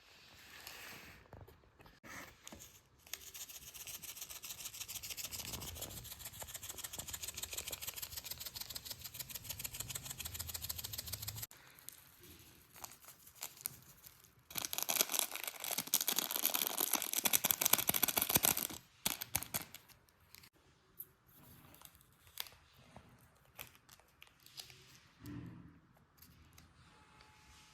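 Kitchen food-preparation sounds: two long runs of fast, even scraping strokes, with scattered clicks and knocks between and after them.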